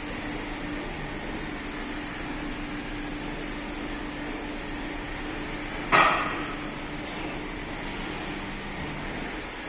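Orthopedic operating table's drive running with a steady hum as its long tabletop section tilts down. About six seconds in comes a single sharp metallic clank that rings briefly, followed by a faint tick.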